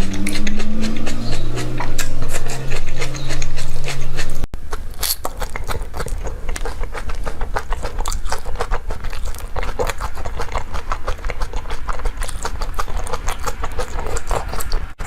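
A loud low drone sliding in pitch, like a revving engine, cuts off abruptly about four and a half seconds in. Close-miked mukbang eating sounds follow: rapid wet chewing, smacking and slurping.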